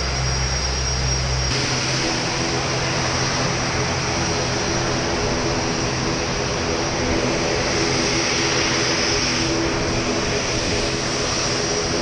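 Aircraft engine noise on an airport apron: a steady, loud roar with a constant whine running through it. About a second and a half in, a low hum drops out and the sound turns brighter.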